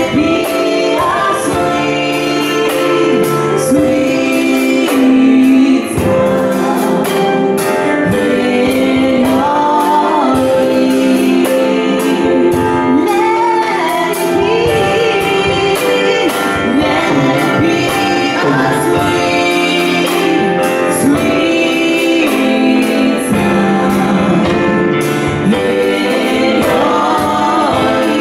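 Live gospel song: a female lead voice with backing singers over sustained keyboard chords, with light percussion ticking steadily.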